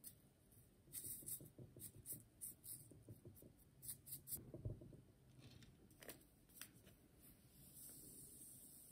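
Faint clicks and light scrapes of kitchen utensils and packaging being handled, with a soft thump about halfway through. Near the end comes a faint hiss as dry yeast granules are poured from their packet into a jug.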